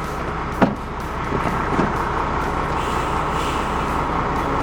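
A motor vehicle's engine running steadily, with one brief sharp sound about half a second in.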